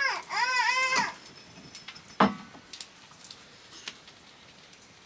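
A small child's high-pitched whining call, two drawn-out notes that rise and fall within the first second. A single knock follows about two seconds in.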